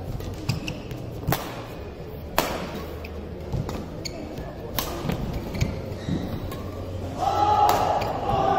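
Badminton rally: several sharp racket strikes on the shuttlecock, one every second or two, with the players' footwork on the court. The strikes sound in a large hall.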